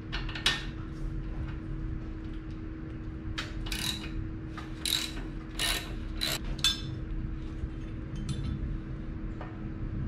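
Hand ratchet clicking in irregular runs as it works the lower rear-shock bolt of a Harley Sportster, a Torx T50 on the bolt head and a 3/4-inch wrench holding the nut. Metal tool clicks and scrapes come thickest in the middle stretch.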